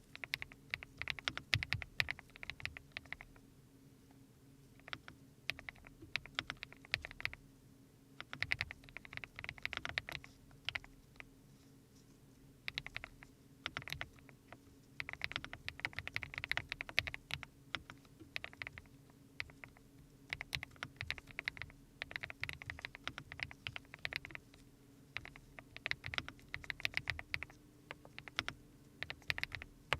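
Typing on a CNC-aluminium custom mechanical keyboard (Hope Bronze) fitted with Mist Blue switches. It sounds as rapid runs of keystrokes in bursts with brief pauses, with a rounded, pebble-like "dogak-dogak" clack.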